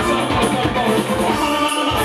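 Live band music with a man singing into a microphone over drums and amplified instruments.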